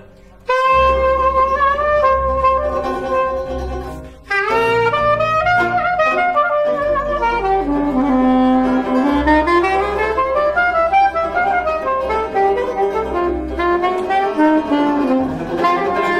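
Soprano saxophone playing a jazz melody with long held notes, accompanied by plucked double bass and banjo. The band drops out briefly twice, right at the start and again about four seconds in, before the melody carries on.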